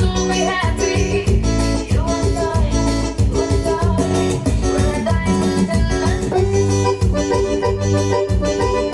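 Forró music with an accordion melody and plucked strings over heavy bass and a steady beat.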